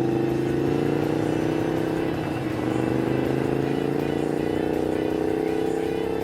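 Racing lawnmower's small engine running hard under acceleration, its pitch climbing steadily, with a brief break about two seconds in.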